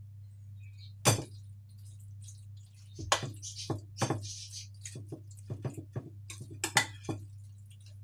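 A metal spoon clinking and scraping against a glass baking dish as pasta and béchamel sauce are stirred together. The sharp clinks come at irregular moments, several close together at times, over a low steady hum.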